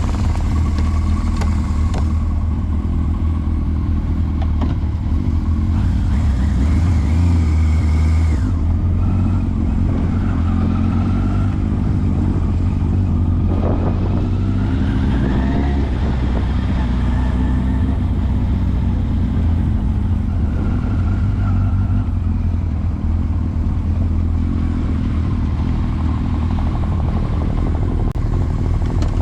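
Motorcycle engine running steadily with a deep low rumble, starting abruptly and holding an even level.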